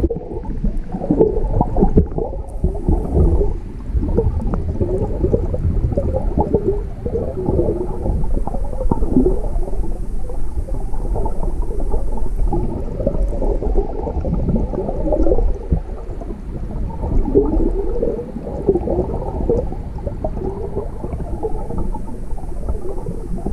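Stream water rushing and gurgling over rocks, heard from underwater: a steady, muffled, low rush with irregular gurgles.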